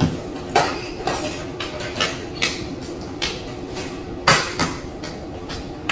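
Irregular clinks and knocks of hard objects being handled, about nine in six seconds with the loudest a little past four seconds in, over a steady low hum.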